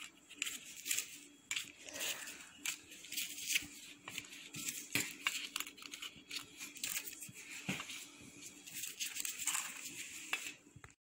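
Disposable plastic glove crinkling, with irregular small taps and clicks as fried potato slices are set down one by one in a glass baking dish.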